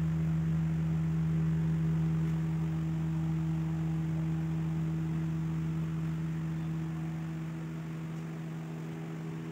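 A steady low hum held at one pitch, with a fainter tone an octave above, slowly fading toward the end.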